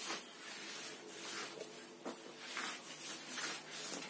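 Blackboard duster wiping chalk off a chalkboard: faint, brushing rub strokes repeated about twice a second.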